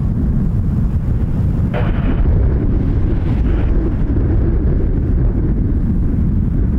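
Strong wind buffeting the microphone: a loud, steady low rumble, with brief gusty hiss about two seconds in and again around three and a half seconds.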